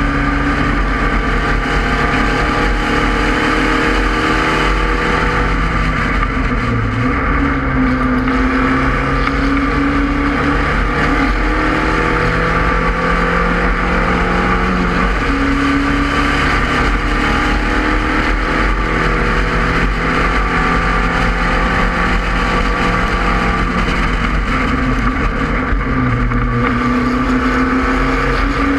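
In-car sound of a Spec Racer Ford Gen 2 race car's four-cylinder engine at racing speed, heard from the open cockpit. Its pitch climbs and drops several times with throttle and gear changes through the corners and straights, over a steady rush of wind and road noise.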